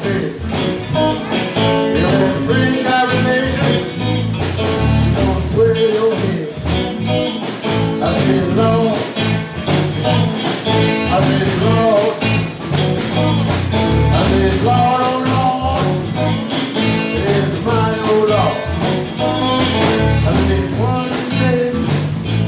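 A Louisiana blues band playing live, with guitar, bass and drums, and a man singing at the microphone.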